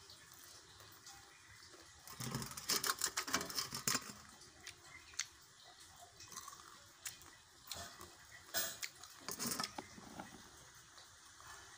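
A person chewing and smacking their lips over a mouthful of cooked pumpkin leaves with masoor dal, close to the microphone. A busy spell of wet clicks runs for about two seconds starting two seconds in, and a shorter one comes about eight to nine and a half seconds in.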